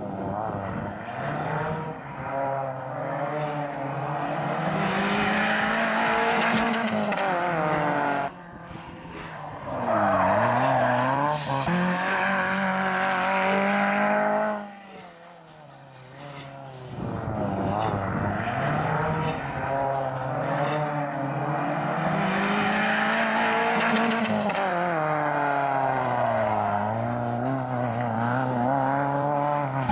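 Small hatchback's petrol engine revving hard, its pitch rising and falling again and again as the car accelerates and slows through a cone course, with tyres skidding on dusty concrete. About halfway through, the engine drops low for a couple of seconds, then revs up again.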